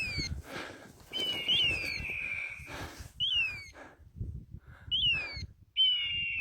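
High whistled chirps, each a short rise then fall in pitch, repeating very regularly about every second and a half, with two longer steady whistle tones, about a second in and near the end. Low rustling underneath.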